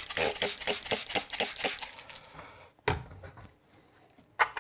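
Chip brush working paint with a rapid run of short scrubbing strokes, about six a second, for the first two seconds. A single knock follows nearly three seconds in, and a click comes near the end.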